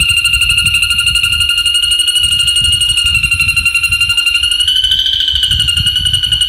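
A songbird from a masteran tutoring track singing one long, rapid, buzzy trill held at a steady high pitch, lifting slightly about five seconds in.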